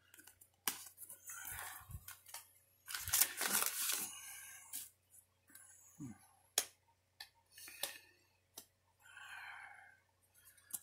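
White paper envelope rustling as it is handled and opened, with scattered light clicks and taps from handling the cards.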